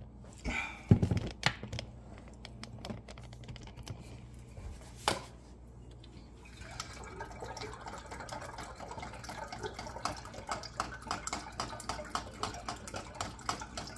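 A few knocks, then from about seven seconds in, fruit juice poured through a funnel into a large glass wine jug: a steady splashing, gurgling pour.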